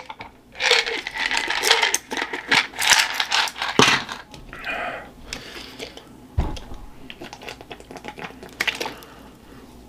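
Handling of supplement pill bottles: pills rattling and plastic clicking, with a dull thump about six seconds in. Near the end, a plastic water bottle crinkles as it is drunk from.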